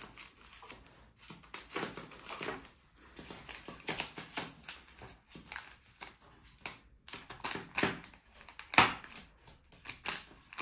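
Eurasian jay pecking with its beak at a chocolate-bar wrapper and the tabletop and stepping about on the table, making a string of irregular clicks and taps, the loudest a little before the end.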